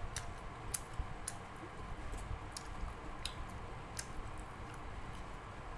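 Close-up eating sounds of rice and dal being mixed and eaten by hand: scattered sharp wet clicks from the mouth and fingers, with soft chewing.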